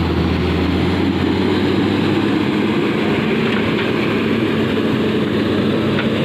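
JCB wheel loader's diesel engine running loud and steady at close range as the loader drives over the muddy road; its lowest rumble eases a little about a second in.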